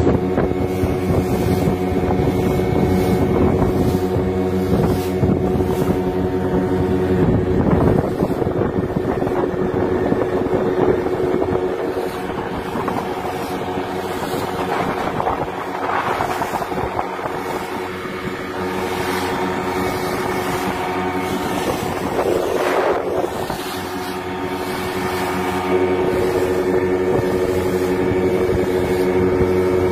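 Outboard motor running steadily at speed, driving a small wooden boat across open sea, with wind on the microphone. The engine note dips a little in the middle and picks up again near the end.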